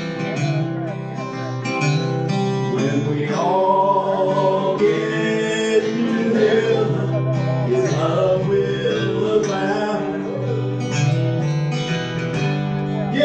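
Country gospel music with guitar: an instrumental passage of the song, with no words sung.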